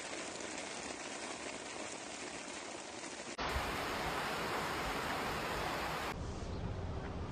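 Steady rush of floodwater and rain, a continuous noise with no distinct events. It becomes louder and deeper about three and a half seconds in, and shifts again near six seconds.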